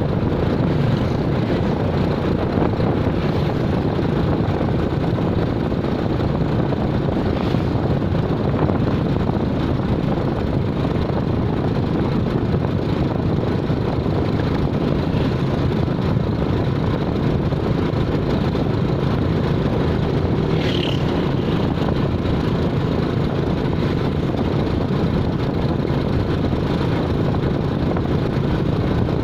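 Steady low rumble of a vehicle's engine and road noise while it is moving, with a short high-pitched squeak about two-thirds of the way through.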